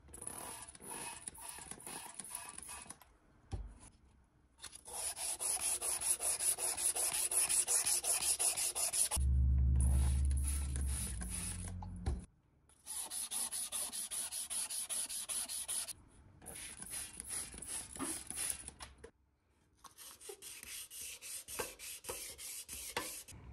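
Wet-and-dry sandpaper rubbing by hand over the wet, freshly painted pressed-steel parts of a toy truck, wet sanding the new paint smooth. The rubbing comes in quick back-and-forth strokes, in several bursts with short pauses between them, and a low hum sounds for about three seconds near the middle.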